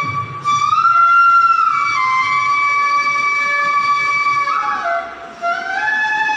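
Bansuri bamboo flute playing a slow melody of long held notes. About a second in it glides up a step and holds, then slides back down. Near the end it steps lower, breaks off briefly, and rises again.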